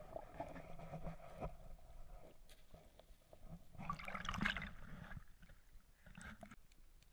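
River water sloshing and gurgling around a GoPro in its waterproof housing, faint and muffled. A louder splash comes about four seconds in as the camera breaks the water surface, and a shorter one follows near six seconds.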